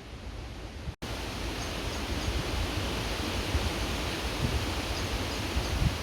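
Creek water rushing in a steady hiss, with low gusts of wind rumbling on the microphone. The sound drops out for an instant about a second in and comes back louder.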